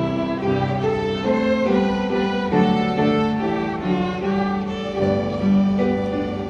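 A school violin ensemble playing a slow melody in held, bowed notes, with a lower accompaniment part sounding beneath.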